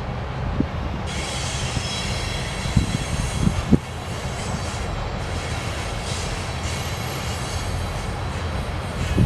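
Freight train cars rolling on the rails with a steady low rumble, and from about a second in a high-pitched metallic wheel squeal made of several tones held together.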